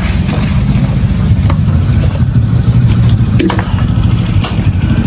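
A loud, steady low rumble like a running engine, with a few faint metallic clinks as a steel cooking pot is lifted and set down.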